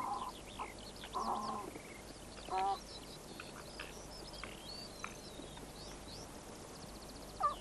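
Red fox cubs yelping and squealing as they play-fight: a few short calls, the loudest about two and a half seconds in, then fainter high squeaks and one more call near the end.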